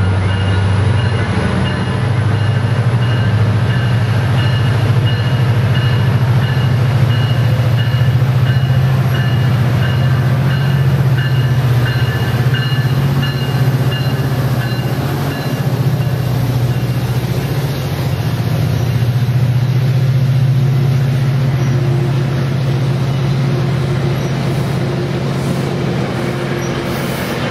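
Metrolink push-pull commuter train passing close by: bilevel passenger cars rolling past over a loud, steady low drone from the diesel locomotive. A high, evenly repeating ringing tone sounds through about the first half of the pass.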